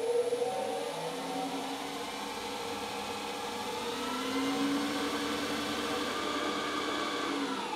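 Drill press spindle and belt drive, driven by a 1 kW three-phase motor on a variable frequency drive, running with a steady whir. Its pitch rises over the first few seconds as the speed is turned up, holds, then falls near the end.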